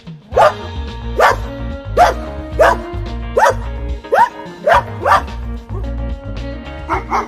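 A dog barking repeatedly, short sharp barks that drop in pitch, about one a second with a quick pair near the end, over background music with a steady low beat.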